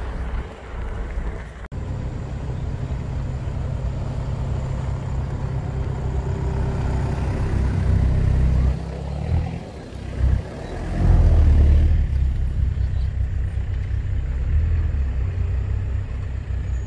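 Off-road vehicle driving on a dirt trail, heard from on board: a steady low engine and road rumble. It changes abruptly about two seconds in, dips briefly near the middle and swells loudest shortly after.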